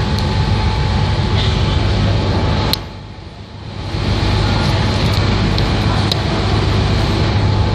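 Ferry engine running with a steady low hum under the rushing of water churned up along the hull. The noise drops away for about a second, roughly three seconds in, then returns.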